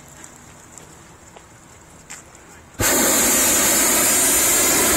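Hot air balloon's propane burner firing overhead: a sudden loud, steady roar that starts a little under three seconds in and holds.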